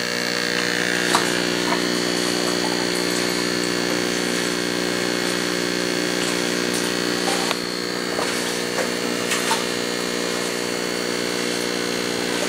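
A small electric motor running with a steady hum and a thin high whine. There are a few light knocks about a second in and again near 7.5 and 9.5 seconds.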